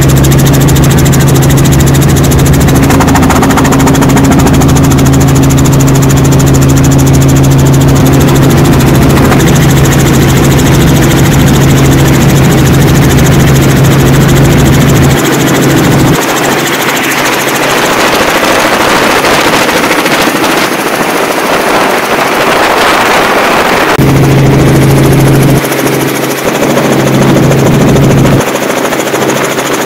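Loud, steady engine drone with a deep hum. About halfway through, the hum drops out for several seconds and a rushing, hissing noise takes over; then the hum returns.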